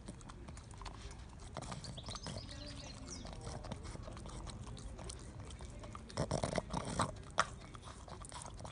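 Dog licking peanut butter off a rubber treat toy held in a hand: quick wet licks and smacking clicks, louder for a moment about six to seven seconds in.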